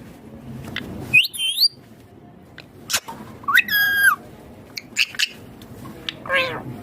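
Indian ringneck parakeet calling three times in short, pitched calls: the first wavers upward, the second holds one pitch before dropping, and the last, near the end, falls. A few sharp clicks come between them.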